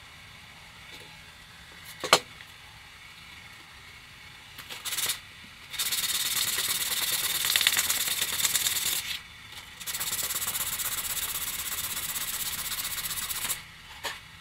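Carbon-fibre propeller blade being rubbed back and forth on sandpaper, in two long stretches of steady rasping, to take weight off its heavy side for balancing. A sharp click about two seconds in.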